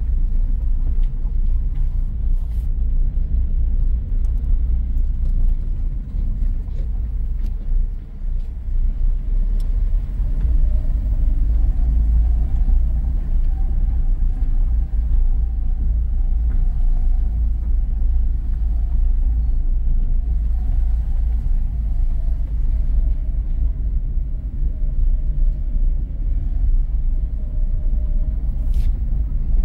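Steady low rumble of a car rolling slowly over cobblestone paving: tyre and road noise.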